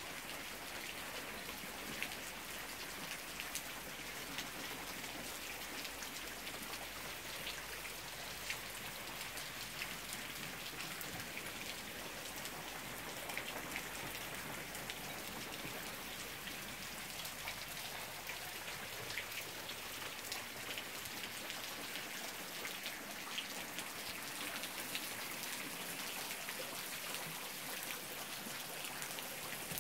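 Steady rain falling on a puddled dirt road and the trees and plants beside it, with many separate drop hits standing out of the even hiss.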